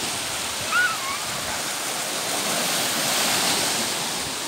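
Small waves breaking and washing in over a shallow sandy beach, a steady rushing surf that swells near the end. About a second in, a short high cry, a child's shout.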